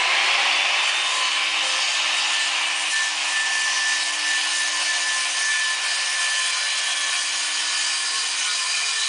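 Handheld electric circular saw running and cutting along a curved line through a plywood panel: a steady motor whine over the hiss of the blade in the wood.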